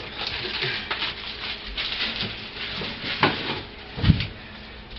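Kitchen handling noises: rustling and knocking as things are moved about, with a sharp knock about three seconds in and a low thud about four seconds in.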